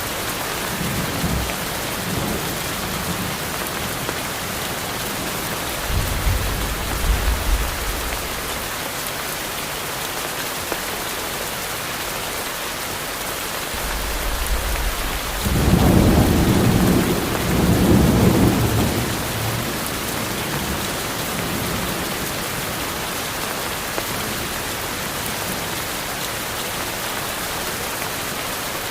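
Heavy rain falling steadily, with thunder rumbling: a low rumble about six seconds in and a louder, longer roll from about fourteen to twenty seconds in.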